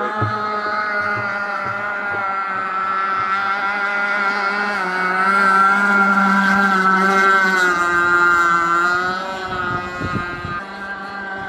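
Gasoline engine of a large radio-controlled boat running at speed on the water, one steady engine note that climbs slightly and grows louder midway, then drops in pitch and fades near the end as the boat eases off or moves away.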